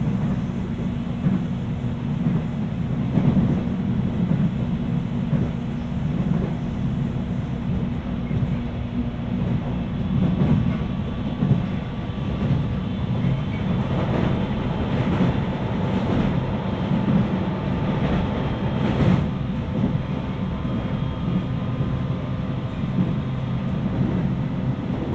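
Cabin running noise of a JR East 719 series AC electric multiple unit under way: a steady low rumble from wheels and running gear, a faint steady whine, and a few sharp rail-joint clacks. The car is known for a jet-like whine that the recordist calls an odd noise and cannot say is normal for the 719 series.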